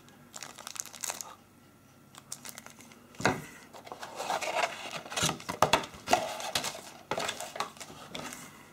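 Thin plastic packaging crinkling and rustling in irregular bursts with small clicks as a phone battery in its plastic bag is handled, then the packaging in a cardboard box is rummaged through. There is a lull about two seconds in.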